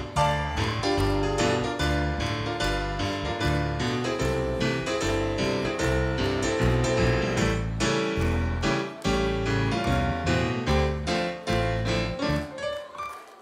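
Swing band playing an instrumental passage, with a keyboard lead over a double bass line.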